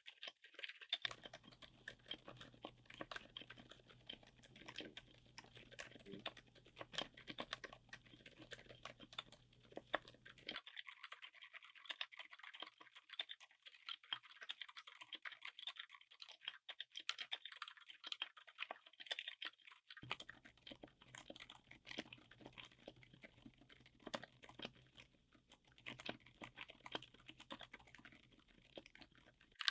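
Fast typing on a mechanical keyboard fitted with silent switches: a faint, dense run of muted key clicks.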